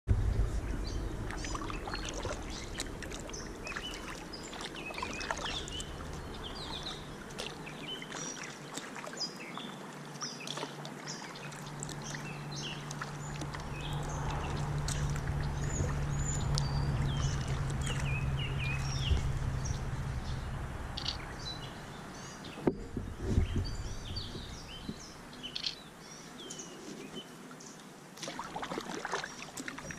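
Many birds chirping and singing over the water sounds of a kayak being paddled. A low steady hum runs for several seconds in the middle, and there are a couple of sharp knocks a little past two-thirds of the way through.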